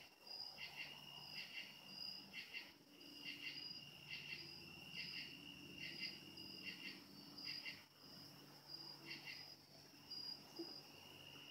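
Crickets chirping at night: a steady high-pitched trill with repeated chirps about once a second, over a faint low hum.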